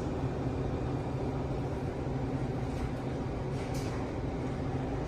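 Manitowoc ice machine running with a steady low mechanical hum, just powered back up after its relays clicked on. A couple of faint ticks come past the middle.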